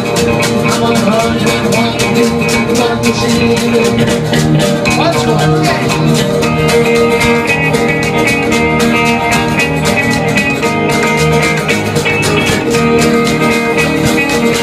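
Live band playing a blues boogie instrumental: guitar over a quick, even, ticking washboard beat.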